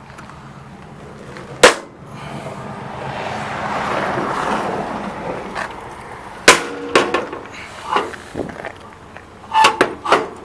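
Sharp clacks and knocks from a service truck body's compartment doors and latches being worked: one loud clack about two seconds in, another about six and a half seconds in, then a run of smaller knocks and clacks near the end. A rustling swell of noise runs between the first two.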